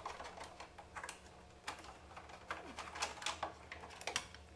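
Scattered light clicks and taps at irregular intervals as hands work a part loose from a table tennis robot's plastic housing.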